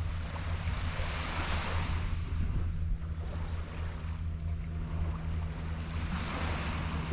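Small waves washing onto a sandy beach, the hiss swelling about a second in and again near the end, over a steady low hum.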